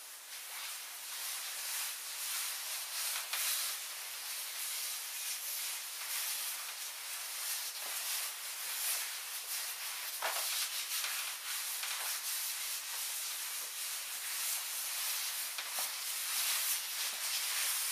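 Stiff taffeta dress fabric rustling and swishing as the wearer turns and walks, swelling and fading unevenly with her movements.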